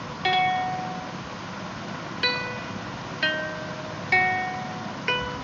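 Background music: a plucked string instrument playing five slow single notes, each starting sharply and ringing out before fading, over a steady hiss.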